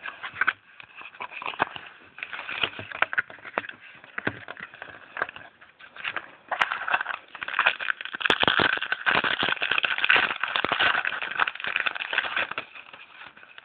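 Foil trading-card pack wrapper being torn open and crinkled, with cards rustling as they are handled: a dense run of crackles and rustles, busiest from about eight seconds in.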